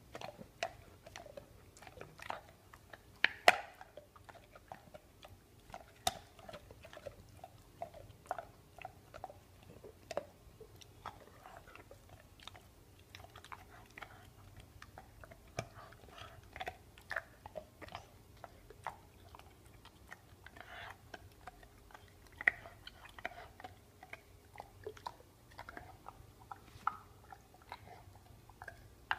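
A brindle pit bull gnawing a bone, its jaws and teeth making irregular cracks, crunches and clicks. A cluster of sharp cracks about three and a half seconds in is the loudest.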